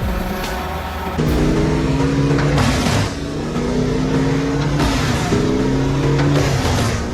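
Engine of a Bandit 15XP wood chipper running hard, its note starting about a second in and climbing slowly, then dropping back and climbing again about every two seconds.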